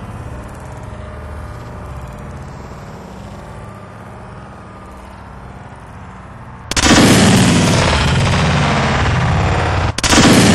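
Tannerite exploding twice, once about two-thirds of the way in and again near the end; each blast starts suddenly and overloads the recording into a few seconds of loud, distorted noise. Before the first, only a low steady rumble.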